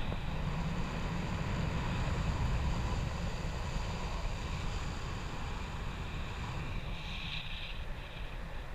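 Steady wind noise on the microphone of a camera carried on a paraglider in flight: a constant low rumble of rushing air.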